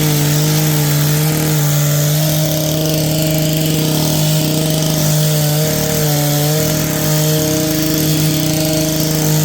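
Powered hedge trimmer running steadily at full speed, a constant motor hum with a faint buzz of the blades, cutting back shrubs.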